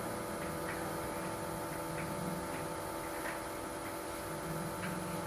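A steady electrical hum made of several even tones, with faint ticks about every half to one second.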